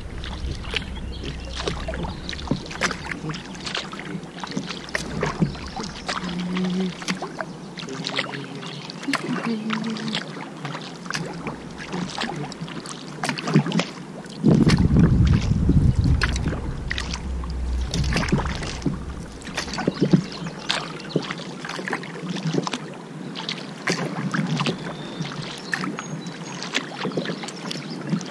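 Kayak paddle strokes: the blades dip and splash in the river water, with repeated drips and small splashes. About halfway through, a loud low rumble lasts a couple of seconds.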